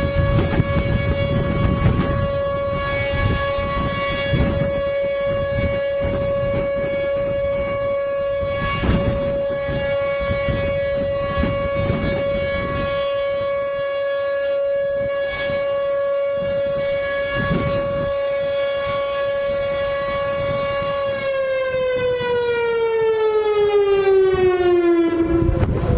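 Whelen Vortex R4 tornado siren sounding a steady alert tone, then winding down, its pitch falling steadily over the last few seconds.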